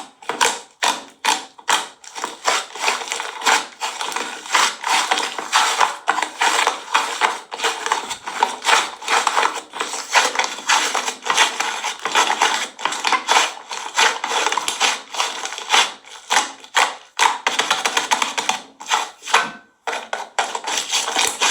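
Slime being squished, stretched and pressed by hand, a dense, continuous run of crackling clicks and pops with a brief pause near the end.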